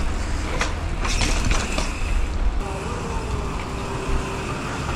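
Wind rumbling on a GoPro action camera's microphone as a mountain bike rolls over paving stones, with a few sharp clicks. About halfway this gives way to a steadier background with a low hum.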